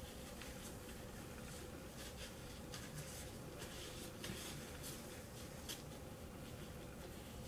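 Faint scattered rustles of gloved fingers working dye through a strand of hair, over a faint steady hum.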